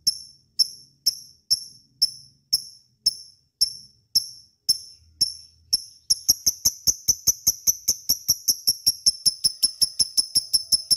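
Lovebird chirping: short, sharp high chirps repeated evenly about twice a second, then speeding up to a fast run of about five or six a second about halfway through.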